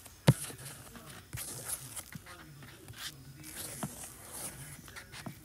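Faint, scattered taps and clicks of a stylus on a tablet's glass screen while a circle is drawn, over a faint low hum.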